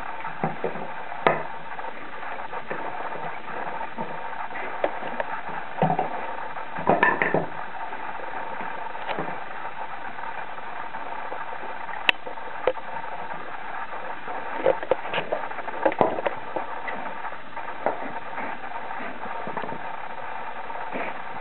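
Wooden pegs knocking and clacking against a wooden dog puzzle board as a dog noses and lifts them out of their holes: scattered single knocks with a few quick clusters, over a steady background hiss.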